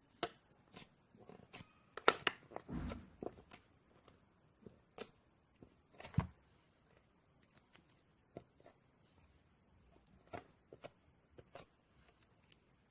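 Sponge slime being handled: irregular sharp clicks, crackles and small pops. The busiest stretch is about two to three seconds in, with another loud pop around six seconds.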